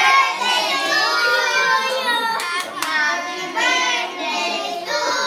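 A group of young girls singing together, voices sustained and wavering, with a couple of sharp claps about halfway through.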